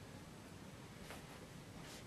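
Faint strokes of a paintbrush on canvas with acrylic paint: two soft brief scrapes about a second apart, over low room hum.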